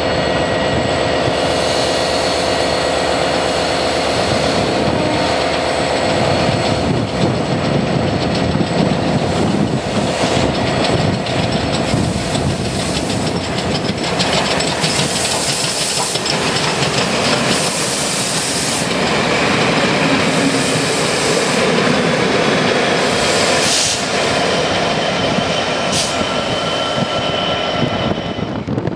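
LMS Class 5MT 'Black Five' 4-6-0 steam locomotive running slowly past with its coaches, wheels clattering over rail joints and pointwork. Steam hisses loudly twice about halfway through.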